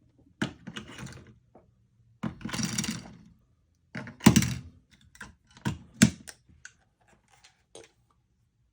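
Batteries being swapped in a megaphone's battery compartment: a run of hard clicks and knocks, with a scraping rustle about two and a half seconds in and the sharpest knocks between four and six seconds in.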